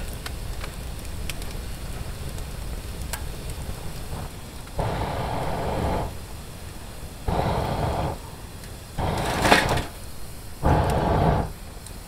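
Campfire burning with a low rumble and a few sharp crackles. From about five seconds in, five evenly spaced puffs of air, each about a second long, are blown into the fire, as through a fire-blowing pipe, to fan the flames.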